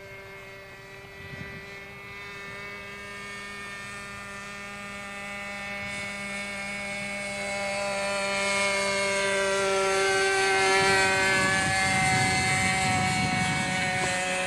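RC model airplane's O.S. .46 two-stroke glow engine and propeller running steadily in flight. It grows louder as the model comes closer, and its pitch slides down a little as it passes, about ten seconds in.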